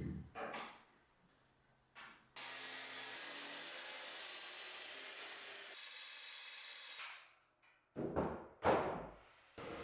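Woodworking shop sounds in short cuts: a few knocks and rubs of wood, then a power saw cutting through wood with a steady noise for about four seconds, then two short swishes.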